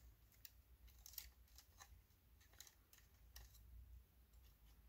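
Near silence with faint, scattered small clicks of a mini projector's circuit board and plastic shell being handled and pried at by hand.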